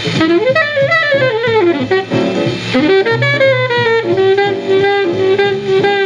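1947 bebop quintet recording played from a 78 rpm shellac disc: an alto saxophone line that swoops up and down, then holds a long note about four seconds in, over string bass and drums.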